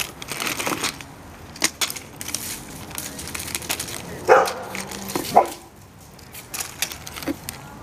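A dog barks twice, about a second apart, over the crinkle and rustle of plastic candy wrappers being handled.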